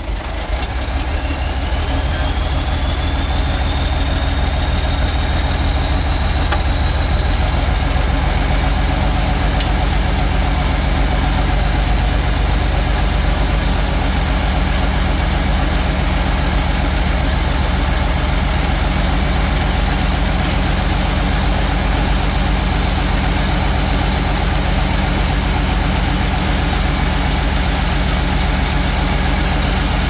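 Heavy diesel engine of a road-building machine running steadily under a low rumble. A high whine rises in pitch over the first three seconds or so, then holds at a steady pitch.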